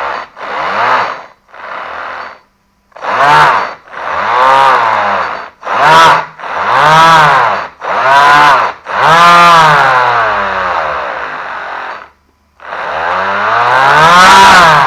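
Electric brushless motor driven by an 80 A sensorless brushless ESC, throttled up and back down about ten times in short runs, its whine rising and falling in pitch with each run, one held longer near the middle.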